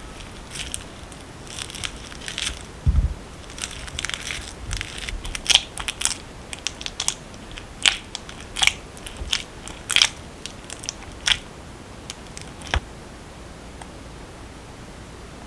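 A metal potato masher squashing ripe bananas in a glass bowl: irregular wet squishing strokes and sharp clicks, with a dull thump about three seconds in. The strokes stop about two seconds before the end.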